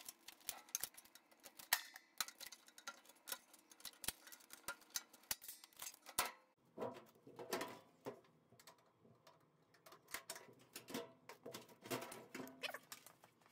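Faint, irregular clicks and taps of the washer's plastic top panel and lid being handled during disassembly, with a few heavier knocks partway through.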